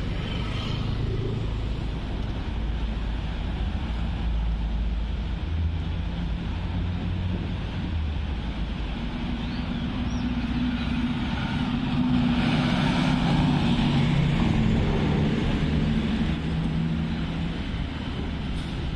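Road traffic: vehicle engines and tyres running by, with one passing vehicle growing louder and fading between about nine and sixteen seconds in. Wind rumbles on the microphone underneath.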